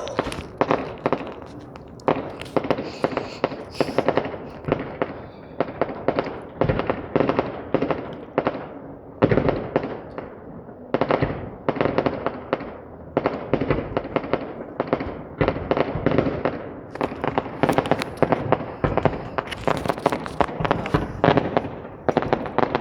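Fireworks going off: rapid volleys of bangs and crackling, one burst after another, with a few short lulls between clusters.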